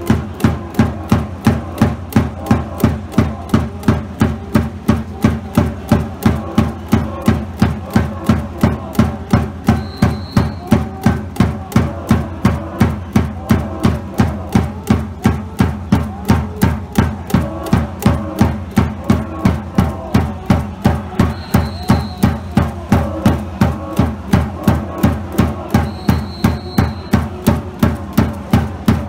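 A cheering section beating a drum in a steady, even rhythm, about two to three strikes a second.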